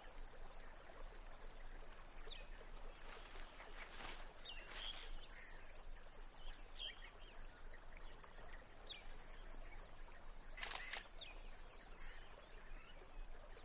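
SLR camera shutter firing a few times against quiet open-air background, with a close pair of clicks a little after two-thirds of the way through.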